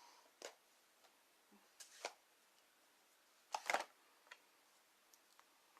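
Scattered light clicks and taps of stamping supplies being handled on a craft table, the loudest a quick cluster of clicks a little past halfway through.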